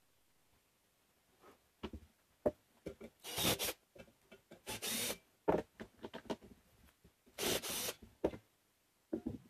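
Cordless drill/driver run in three short bursts, about half a second each, turning screws in a stool's steel leg frame. Knocks and clatter come between the bursts as the steel legs and plastic seat are handled.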